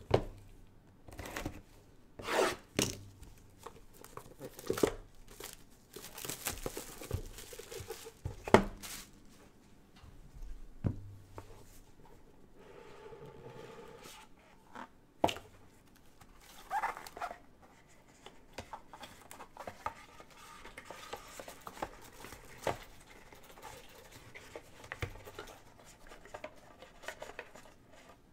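Plastic shrink-wrap being torn off a sealed trading-card box, crinkling and tearing, mixed with cardboard scraping as the box is opened and handled, and scattered sharp taps and knocks throughout.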